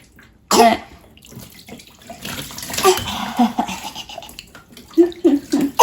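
Water splashing and sloshing in a baby's bath, with a toddler's short vocal sounds here and there, several in a row near the end.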